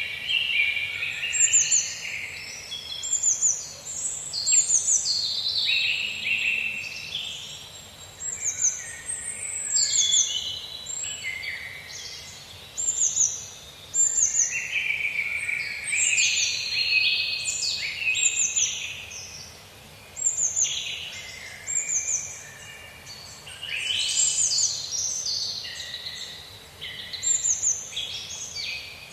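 Several songbirds singing together: short, high, falling whistled notes repeated every second or so over lower warbling phrases.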